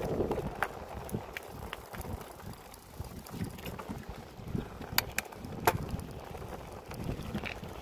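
Mountain bike rolling over a gravel track: tyre crunch and frame rattle under wind buffeting on the handlebar-mounted microphone. Scattered sharp clicks and knocks, the loudest two a little after halfway.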